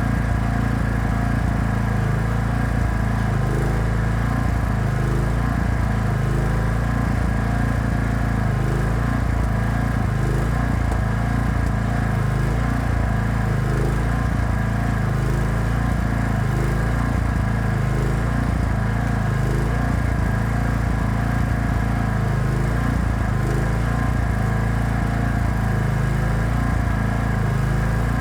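Engine of an engine-driven welding generator running steadily, with a slow, even wavering in its note about every second and a half.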